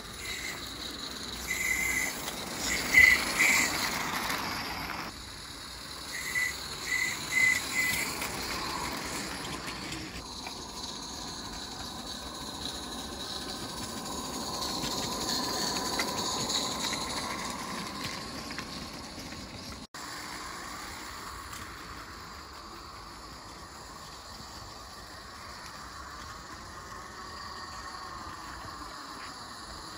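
Garden-railway steam locomotive running along its track, giving two groups of short, high whistle toots in the first several seconds, followed by steady hissing and running noise that swells and then fades.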